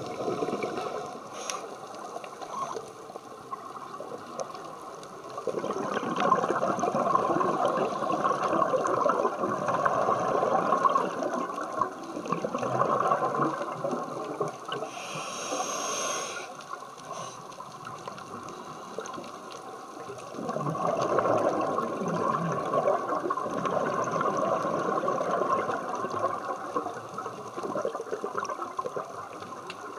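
Scuba breathing heard underwater through a demand regulator: two long rushes of exhaled bubbles, with a short hiss of an inhaled breath between them.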